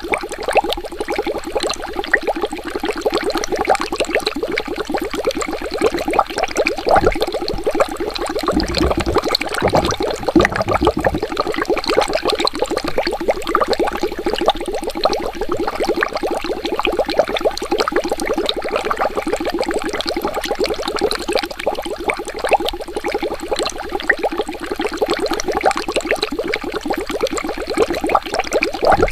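Water bubbling steadily, a dense, quick run of small bubbles popping and gurgling, with a deeper low rumble for a few seconds around the middle.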